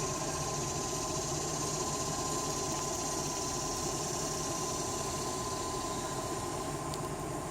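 An engine running steadily at idle, with a thin, even whine over the low rumble.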